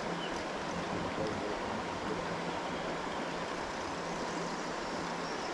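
Steady rushing of a trout stream's flowing water.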